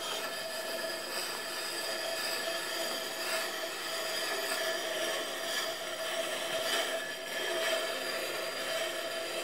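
Steel broad axe being ground on a treadle-turned water grindstone: a steady whine running through a gritty scrape, with slight swells. The stone is grinding slowly.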